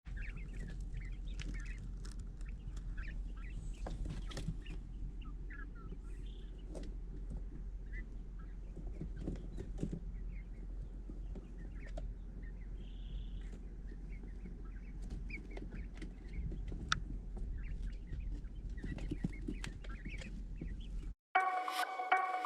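Young tuxedo quail chirping and peeping in short scattered calls over a steady low hum. Near the end the sound cuts out briefly and music begins.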